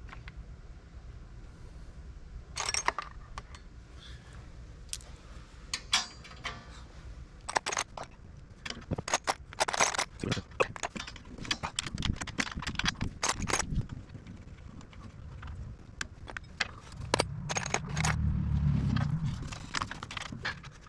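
Irregular metallic clinks, rattles and jingles of hand tools and small hardware being handled, with a louder low rumble for a few seconds near the end.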